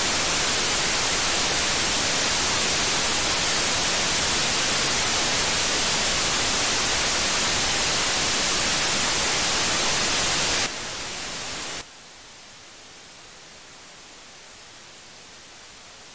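Steady radio static hiss from an RTL-SDR receiver's demodulated audio, tuned to 433.92 MHz in USB mode with no signal. About eleven seconds in the hiss drops sharply in level, and a second later drops again, leaving a fainter steady hiss.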